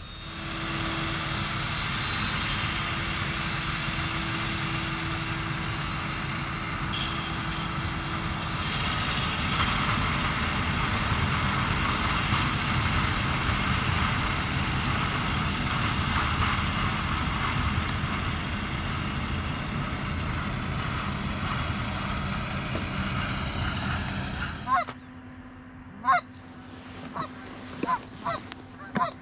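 CLAAS self-propelled forage harvester running steadily at working load while it chops standing corn and blows the silage from its spout into a wagon. About 25 seconds in the machine sound cuts off and a run of short goose honks follows.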